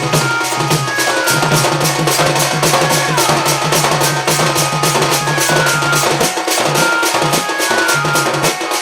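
Sambalpuri danda nacha folk music: drums and percussion keeping a fast, even beat under a high melody of short notes.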